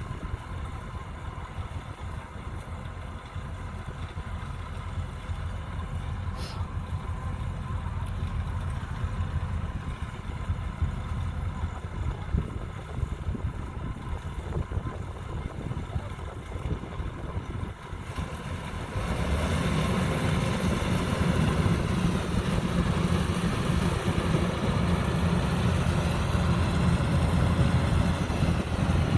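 Engine and machinery of a 105X combine harvester running steadily while cutting standing rice, growing louder about two-thirds of the way through.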